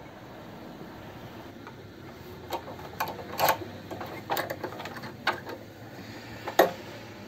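Irregular clicks and knocks as a steel C-clamp is fitted and screwed down on a fatwood ring blank against a wooden block, with the loudest knock near the end.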